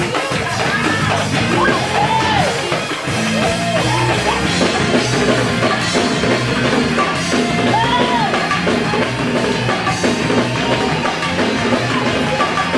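Live gospel church band playing upbeat praise music, with drum kit and guitar driving a steady beat.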